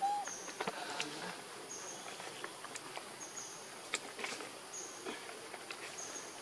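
Forest ambience: a short high note repeats about every second and a half, with scattered clicks and a brief squeak right at the start.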